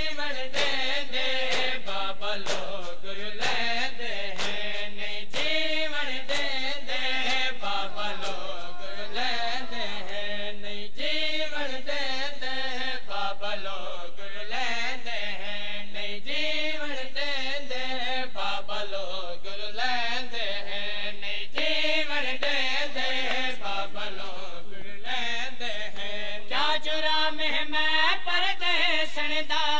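Men chanting a noha, a Shia lament, in a steady sung melody, over a steady beat of sharp slaps of hands on bare chests (matam).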